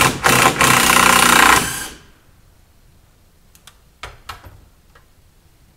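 A handheld power driver runs in one loud burst of about two seconds, driving a screw into the wooden framing, followed by a few light knocks of wood being handled.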